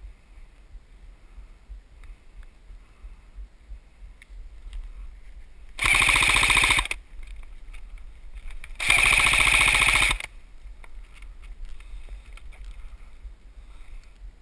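Airsoft rifle firing two full-auto bursts, each lasting about a second, roughly three seconds apart, each a fast rattle of shots.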